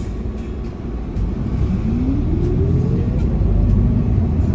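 A city bus's engine and drivetrain heard from inside the cabin as the bus accelerates: a low rumble that grows louder from about a second in, with a whine rising steadily in pitch.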